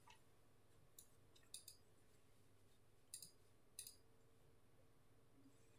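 Near silence with faint room tone and a handful of short, faint clicks, about four spread over the stretch: computer mouse clicks while brushing in photo-editing software.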